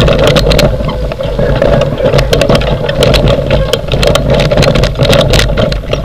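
Wheeled dog-sled training rig rolling fast behind a husky team over a rough dirt and grass track: a steady rumble and rattle from the wheels and frame, crossed by many sharp clicks and knocks from the bumpy ground.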